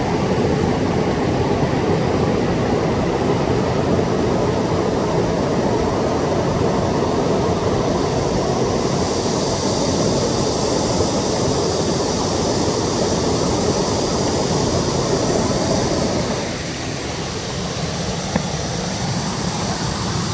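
Steady rushing roar of a small waterfall and stream. About nine seconds in a higher hiss joins, and near the end the deep part of the roar drops somewhat.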